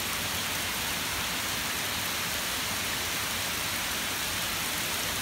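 Heavy rain pouring down in a steady, even hiss during a flash-flood downpour.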